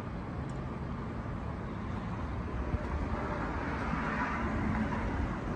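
Steady low rumble of vehicle or engine noise, with a hiss that swells about three seconds in and eases near the end.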